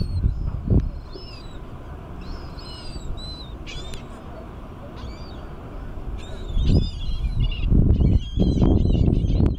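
Seagulls calling, short high calls repeated throughout, over a low uneven rumble that grows much louder in the last three seconds.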